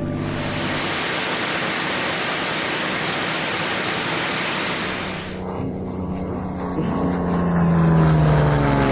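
For about five seconds, an even rush of wind and engine noise inside a Spitfire's cockpit. Then the engine of a WWII piston fighter heard from the ground: a steady drone that grows louder and falls in pitch as the plane passes near the end.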